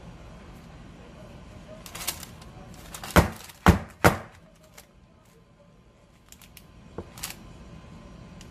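Three sharp knocks about half a second apart: a batter-filled metal baking tray rapped on the counter to level the batter. Before and after comes a faint rustle of the parchment paper lining.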